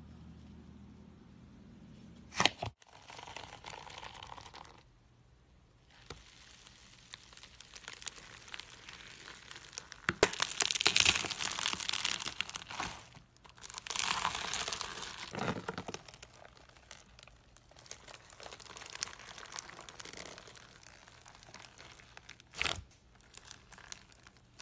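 Slime being squished and worked by hand, giving irregular crackling and crinkling sounds that come and go in spells, loudest around the middle. A sharp click comes about two seconds in and another near the end.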